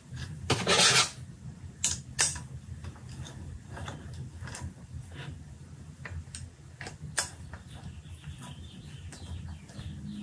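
Metal parts being fitted together by hand on a steel workbench as a billet steel mount is bolted to a turbocharger: scattered metallic clicks and taps, the loudest a short scraping rub about half a second in, over a faint low hum.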